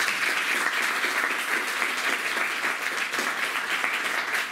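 An audience applauding, with dense, steady clapping from many hands.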